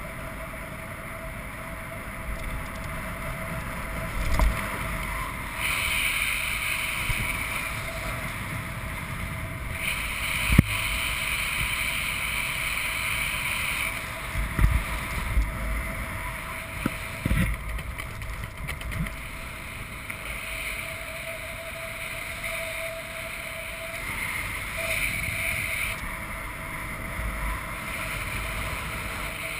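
Wind rushing over a helmet camera's microphone during a parachute descent, with a steady drone from the smoke-trailing Pitts aerobatic biplane circling nearby. A few brief low gusts buffet the microphone.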